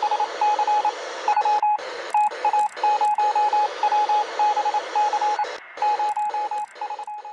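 Intro sound effect: a steady beep keyed on and off in an irregular pattern of short and longer pulses, like Morse code, over a hiss of radio static.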